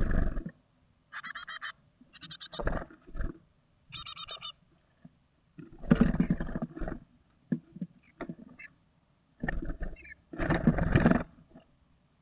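Great tit nestlings ready to fledge, scrabbling and flapping their wings inside a wooden nest box, with short bouts of rapid, stuttering high calls between the flurries. The loudest flurries come at the start, about six seconds in and about ten seconds in, with sharp scratches and taps of claws on the wood between them.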